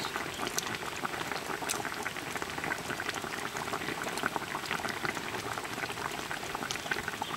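Fish stew in a large iron wok boiling steadily, with many small bubbles popping in a constant crackle.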